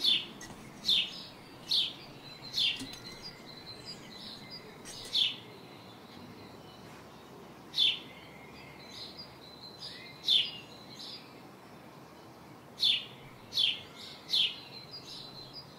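Birds chirping in a background ambience track: short, sharp chirps in irregular groups, several in quick succession at the start and again near the end, with single chirps in between.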